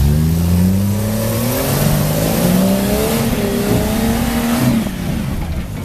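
Off-road 4x4 engine revving hard under load, its pitch rising over the first couple of seconds, then holding with small surges before easing off near the end.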